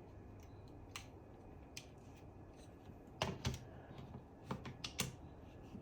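Sharp clicks and clacks of a holographic sight being fitted and clamped onto the rail of an airsoft M4. A couple of faint, scattered clicks come first, then a quick run of louder clacks in the second half.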